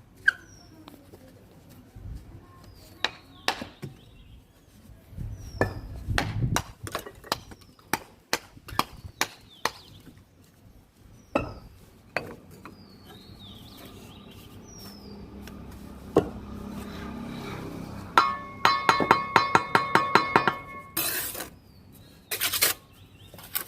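Irregular sharp clinks and knocks of hard objects being struck. A fast run of ringing metallic clinks comes about three-quarters of the way in, followed by a few harsher scraping crashes.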